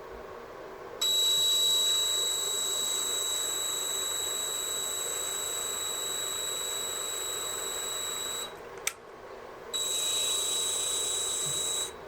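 Electric drill boring into a wooden rifle stock, running with a steady high whine from about a second in. It stops for about a second near the nine-second mark, then runs again for about two seconds.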